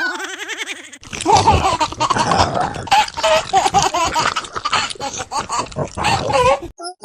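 Animal vocalizations: a wavering, wobbling call for about a second, then a dense, busy run of animal noises that stops abruptly near the end.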